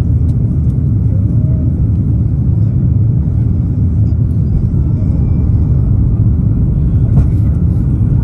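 Steady low rumble of engine and airflow noise inside the cabin of an Airbus A330-900neo on its descent toward landing.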